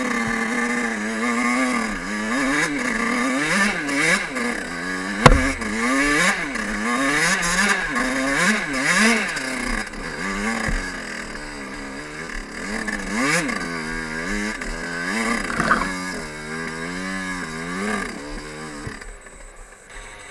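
Fantic 50 Scuderia's small two-stroke engine revving up and down over and over as the enduro bike rides a dirt trail, with a sharp knock about five seconds in. The engine grows quieter near the end.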